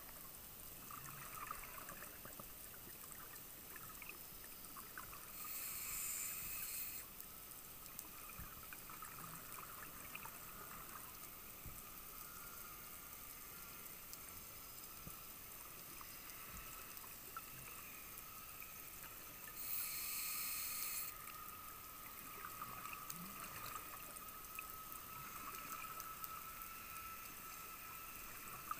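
Underwater ambience with a faint steady hiss and fine crackle, broken twice, about five seconds in and again near twenty seconds in, by a scuba diver's exhaled bubbles rushing out of the regulator for about a second and a half each.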